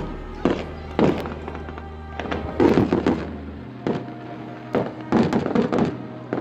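Fireworks display: aerial shells bursting with sharp bangs every second or so, bunching into rapid clusters about halfway through and again near the end, over music.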